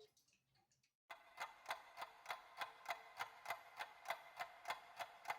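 The last of a chime tone fades out. About a second in, after a moment of silence, a clock starts ticking rapidly and evenly, about three ticks a second.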